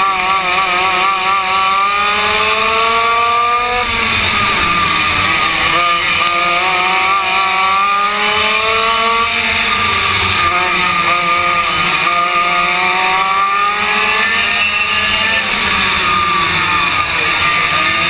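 Yamaha KT100 two-stroke kart engine heard onboard under racing load, its pitch climbing in long sweeps as it accelerates and dropping off sharply several times as the driver lifts for the corners.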